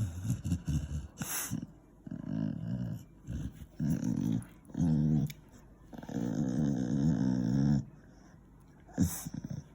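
A beagle making a series of low, drawn-out, growl-like vocal noises while having his ears cleaned: about six of them, the longest lasting nearly two seconds in the second half. Two short hissy bursts, one about a second in and one near the end.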